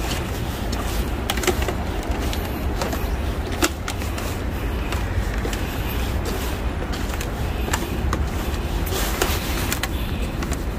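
Steady low outdoor rumble, with a few faint, irregular clicks.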